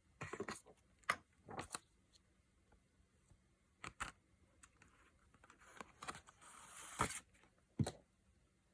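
Scattered light clicks and taps of a makeup palette case and its packaging being handled, with a brief rustle about six and a half seconds in.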